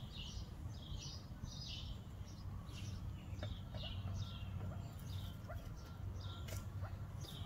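Partridges calling: a rapid series of short, high chirps, each sliding downward, about two a second.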